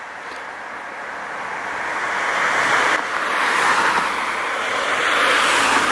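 Rushing wind and road noise of a bicycle ride, a steady hiss that builds louder over the first few seconds and then holds.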